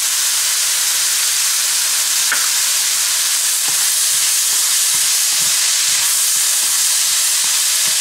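Minced chicken with onion and chili sizzling steadily in a frying pan while a wooden spatula stirs it, with soft scrapes and knocks against the pan in the second half.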